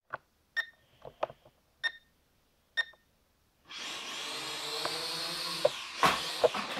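A few short beeps and clicks, then, about three and a half seconds in, a small toy quadcopter's four propeller motors start up into a steady high whir, with a couple of knocks near the end.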